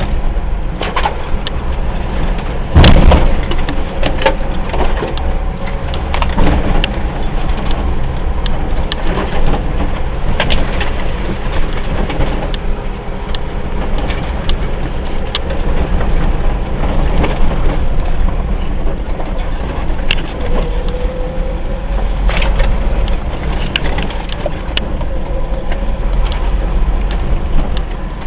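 Car driving, a steady low rumble with frequent knocks and rattles and one loud thump about three seconds in.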